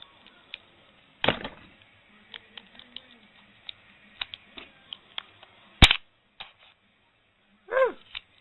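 Light clicks and taps of small tools and parts while a Motorola Razr flip phone is being taken apart, with a thump just over a second in and one loud, sharp crack at about six seconds. A brief pitched sound follows near the end.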